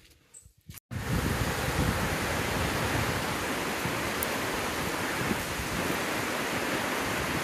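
Water rushing over a reservoir dam's stepped spillway and along its overflow channel: a steady rush that cuts in suddenly about a second in. Before it, a few faint footsteps on a woodland path.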